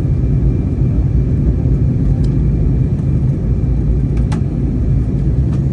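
Steady low rumble inside an Airbus A320neo's cabin in flight, from engine and airflow noise. Two faint clicks come about two and four seconds in.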